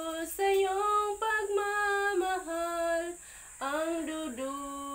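A woman singing into a close microphone, holding long notes, with a short pause for breath a little after three seconds in.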